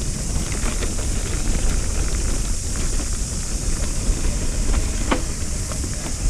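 Mountain bike riding fast down dirt singletrack: a steady low rumble of tyres and wind on the microphone, with scattered clicks and rattles from the bike over the bumps, one sharper knock about five seconds in.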